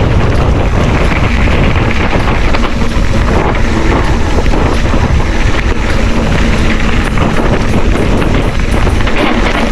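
Wind buffeting the microphone of a moving rider, a loud steady rush.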